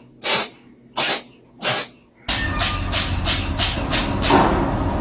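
A cat sneezing: three sharp sneezes about two-thirds of a second apart, then, over a steady background hum, a quick run of about eight sneezes at roughly three a second.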